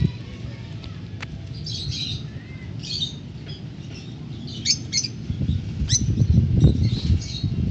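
African lovebirds chirping and squawking in short, scattered high calls, over a low rumble that swells in the second half.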